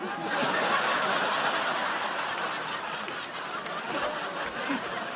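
Sitcom studio audience laughing, breaking out all at once and staying loud, easing slightly toward the end.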